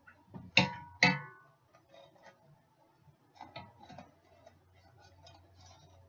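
Two sharp metallic clanks with ringing, about half a second apart, then a string of light clicks and taps: metal cookware and utensils being handled while the fish in the air fryer basket is turned.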